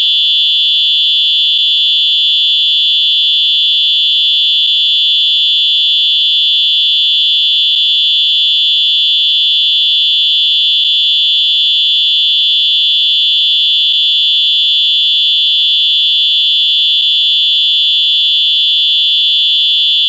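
Electronic whistle sounding one continuous shrill, high-pitched electronic tone, loud and steady in pitch and level without a break.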